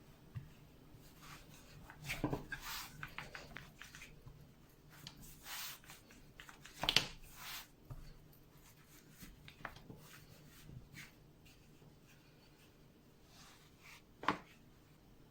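Light clicks, knocks and rustling of small objects being handled in a quiet room, with sharper knocks about two seconds in, about seven seconds in, and near the end.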